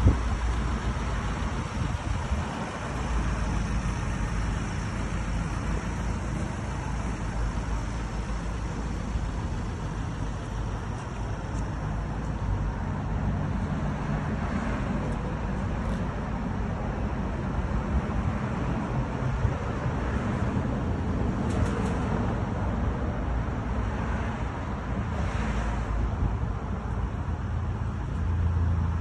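Steady low rumble of motor-vehicle noise, with a sharp knock right at the start.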